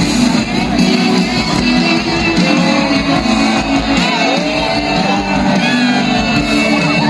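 Loud band music with guitar and singing voices, a crowd shouting along.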